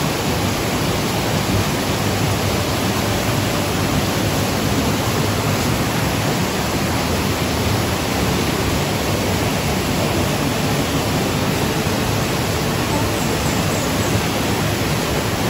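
Steady, loud rushing of a waterfall's falling water, an even roar with no breaks.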